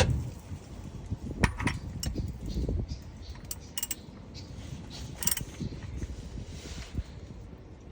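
Light metallic clicks and clinks of hand tools or small metal parts being handled, with a handful of sharp ones spread through.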